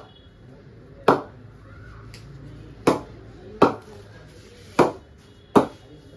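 A cricket ball bounced repeatedly off the face of an SS Vintage Rapier cricket bat in a ping test of the willow: five sharp wooden knocks at uneven intervals, each with a brief ring. The seller judges the bat a good one.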